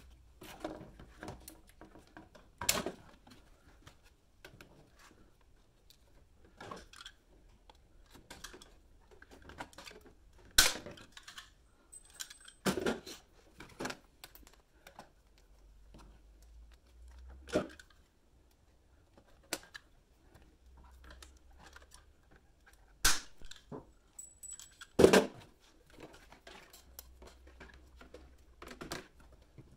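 Hand rivet gun pulling 3/16-inch pop rivets through a metal bracket into a plastic snow flap: a series of sharp snaps several seconds apart as each rivet sets, the loudest near the end, with clicking and rattling from handling the flap, washers and tool between them.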